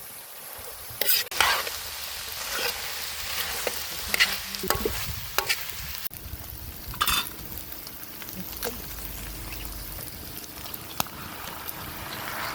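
Meat frying and sizzling steadily in a saç tava, a sheet-iron pan, while it is stirred, with several sharp scrapes and clinks of the utensil against the metal pan.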